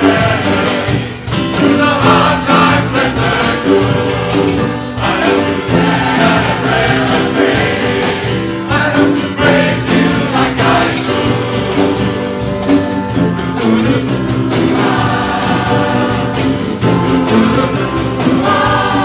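A large choir singing a song in harmony, accompanied by a percussion band drumming a steady beat.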